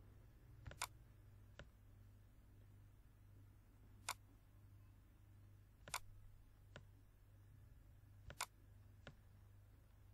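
Computer mouse clicking: about eight short sharp clicks, some in quick pairs, over a faint low steady hum.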